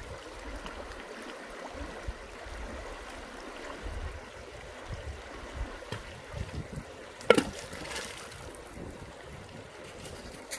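Shallow creek water running over stones, with a few small splashes and one sharp plunk of a rock landing in the water about seven seconds in, the loudest sound.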